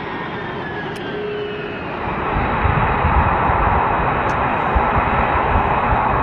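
Jet engines running at taxi power: a steady whine with faint, slowly falling tones. About two seconds in, it gives way to a louder, rougher roar with deep rumble from a formation of taxiing F-22 Raptors, each with twin Pratt & Whitney F119 turbofans.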